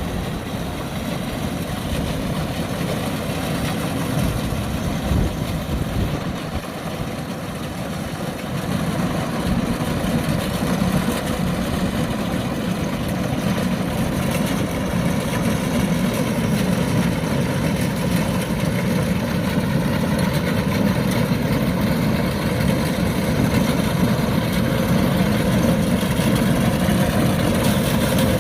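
Kubota DC-105X combine harvester's diesel engine running steadily, growing louder about nine seconds in.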